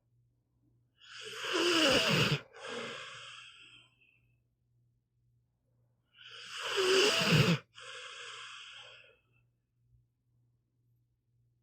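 Pit bull snoring in its sleep: two snores about five seconds apart, each a loud snoring breath followed at once by a quieter one.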